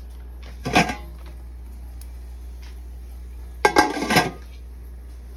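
Kitchenware clattering in two short bursts, the second longer, about three seconds apart, over a steady low hum.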